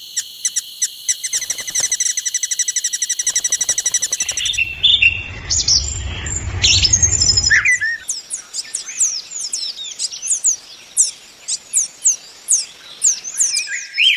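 Birds chirping: a fast, high trill for the first few seconds, then scattered calls over a low rumble, then a long run of short, high chirps, each sweeping downward, a few a second.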